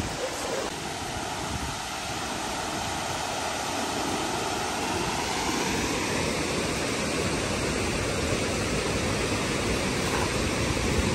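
River water rushing steadily over a rock ledge below a dam.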